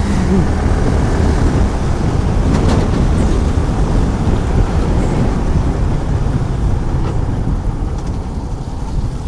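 Yamaha R15 V3's single-cylinder engine running at road speed, mixed with a steady rush of wind and road noise; the sound eases a little near the end.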